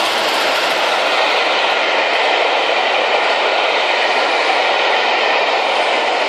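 Train passing close by: a steady, loud rumble and rattle of rolling stock wheels on the rails.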